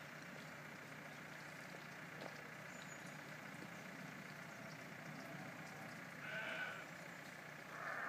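Two short livestock calls, one about six and a half seconds in and another at the very end, over a faint steady low hum.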